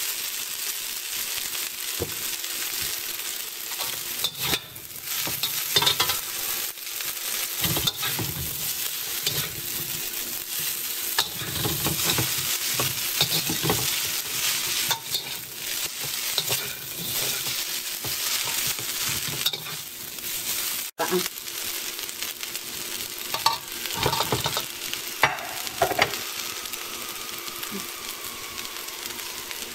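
Noodles stir-frying in a hot wok: a steady sizzle, with metal spatulas scraping and clacking against the wok as the noodles are tossed. The sound breaks off briefly about two-thirds of the way through, and a few louder clacks follow soon after.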